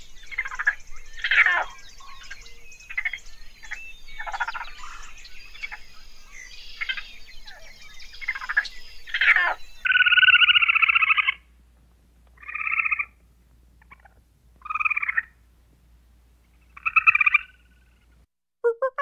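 Raccoons chittering: a quick string of short, squeaky calls, many falling in pitch. About halfway through it gives way to a gray squirrel's calls, four buzzy bursts with gaps between them, the first about a second long.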